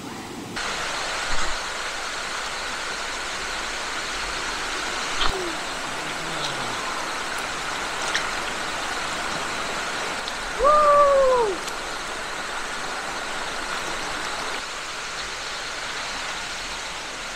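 Steady rush of a rocky stream running fast over stones. About ten seconds in a single loud call rises and then falls in pitch for about a second.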